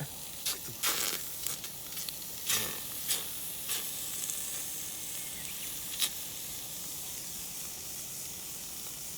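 Food sizzling on a hot iron plate over a campfire: a steady high hiss, with several sharp clicks or crackles in the first few seconds and one more about six seconds in.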